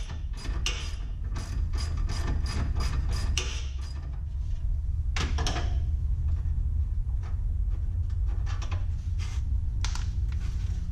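Hand ratchet wrench clicking in quick runs as the last bolt holding a stock front crash bar is backed out, over a steady low hum. The clicks thin out after about four seconds.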